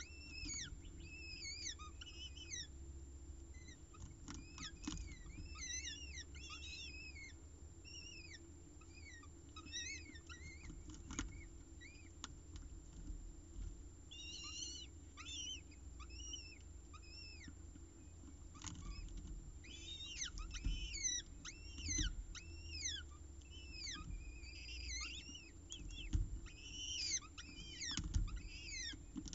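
Peregrine falcon chicks giving clusters of short, high, down-slurred begging chirps while being fed. A few soft knocks and scuffs come from the adult tearing prey on the gravel, over a low steady hum.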